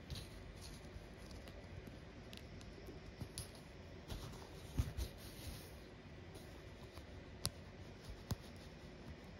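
Faint rustling of blue cotton embroidery floss being drawn through stamped cross-stitch fabric, with a few small clicks and ticks of the needle and fabric, the loudest about halfway through.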